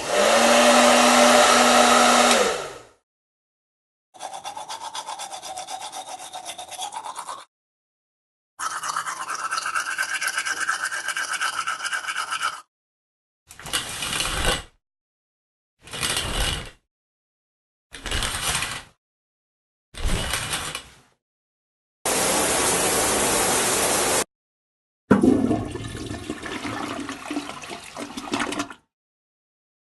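A string of separate bathroom sounds with short gaps between them. A hair dryer runs and is switched off, its hum falling away. Two stretches of rhythmic toothbrush scrubbing follow, then four short swishes of a shower curtain drawn along its rail, a couple of seconds of running shower, and near the end a toilet flushing.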